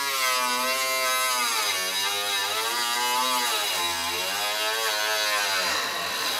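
Pneumatic cut-off wheel cutting through rusted sheet steel of a car's rear quarter panel: a steady high whine with hiss, its pitch sagging about three times as the wheel bites into the metal, then recovering.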